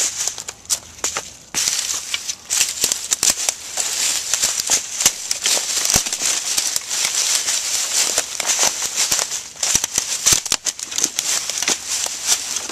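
Irregular crunching and crackling of footsteps through dry leaf litter and brush, over a steady high hiss.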